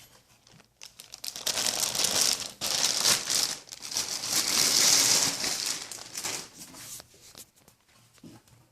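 Plastic packaging crinkling and rustling as it is handled, in two louder swells over about six seconds, dying away near the end.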